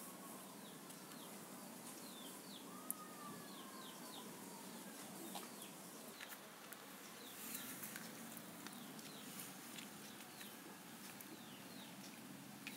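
Faint, repeated short high chirps of birds in the background, with a faint long drawn-out call about three seconds in.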